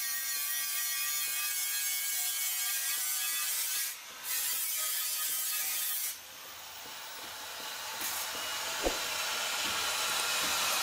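Electric angle grinder grinding iron: a steady high hiss with a faint whine. The sound drops away twice, about four and six seconds in, then builds back up toward the end.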